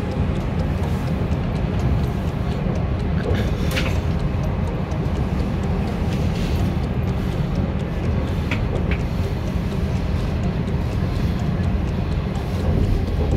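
Train noise: a steady low rumble with a few brief sharp clicks.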